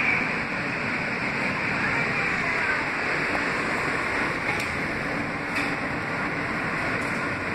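Steady ride noise of a Kawasaki R160B subway car with Siemens propulsion running along the track, wheels on rails, heard from inside the car, with two faint clicks about a second apart midway through.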